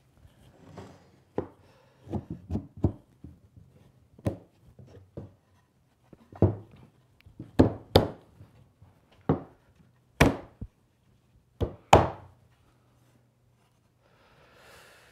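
Irregular wooden knocks and clacks as the rails and stiles of a shaker-style cabinet door are fitted around its panel and knocked against a workbench to seat the joints. The loudest knocks come in the second half.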